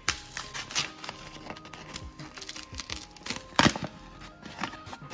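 Paper flour bag rustling and crinkling as its folded top is pulled open, with a sharp crackle about three and a half seconds in.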